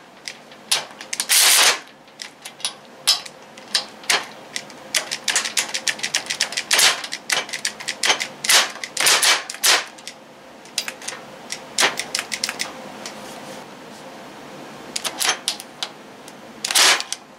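Cordless 12V ratchet wrench's head clicking on a bolt in irregular single clicks and short rattling bursts as its trigger is pulsed. It stalls against the bolt, unable to reach 30 ft-lb.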